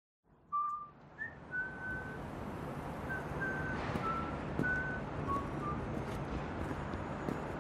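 A person whistling a short tune of about nine brief notes, heard over steady traffic and street noise; the whistling stops about six seconds in while the street noise carries on with a few faint clicks.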